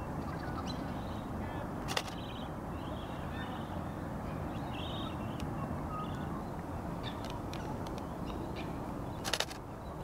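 Camera shutter clicks over a steady outdoor background: a single click about two seconds in and a quick burst of several near the end, with faint short bird calls in between.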